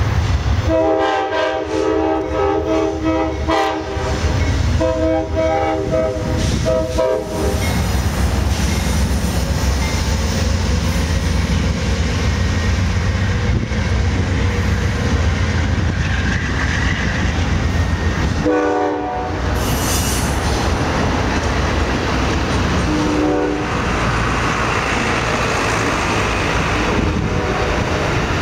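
Amtrak passenger train passing close by, led by a GE Genesis diesel locomotive: its multi-note air horn sounds two long blasts in the first seven seconds and two short toots later on. Between and after the blasts the heavy rumble of the diesel and the clickety-clack of the passenger cars' wheels on the rails carry on steadily.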